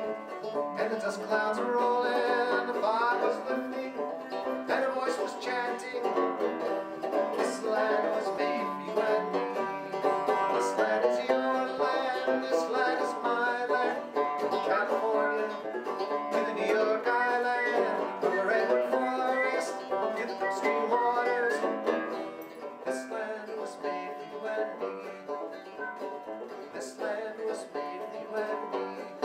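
Banjo music in a country or bluegrass style: plucked strings playing a folk tune without words.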